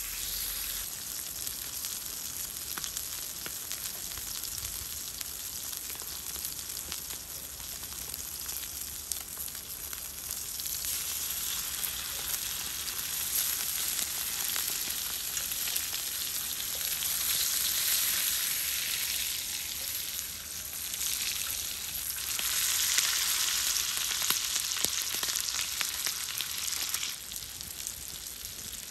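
Steak searing in fat on a hot round griddle pan, a steady high sizzle that swells louder for stretches in the second half. Near the end it gives way to sliced mushrooms and green onions frying in the same pan.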